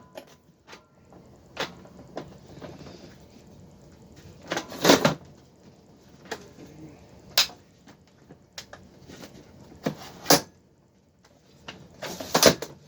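About five sharp, hard plastic clacks and knocks, spread a few seconds apart, from handling the Milwaukee Packout rolling box's telescoping handle and its quick-release collars. The loudest come about five seconds in and near the end.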